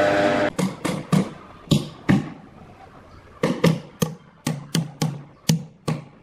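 A loud droning machine sound cuts off about half a second in. Then a hand hammer strikes at the base of a large timber log in two quick runs of sharp blows, about five and then about nine.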